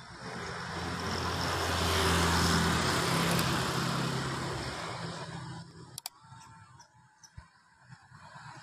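A motor vehicle's engine passing close by: it swells to its loudest about two seconds in, with a steady low engine tone, then fades away. A sharp click comes about six seconds in.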